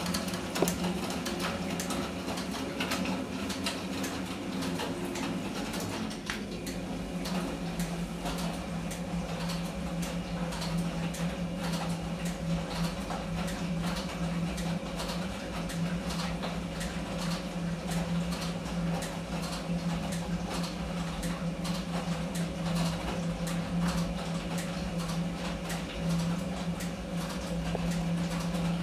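Small Eudora Goldkind EU 340 washing machine running its wash cycle: the motor hums steadily, with irregular clicks and rattles throughout.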